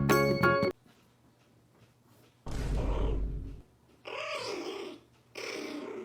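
Background music cuts off abruptly, then a puppy makes three short rough vocal sounds, the first with a deep rumble, the last two with a bending pitch.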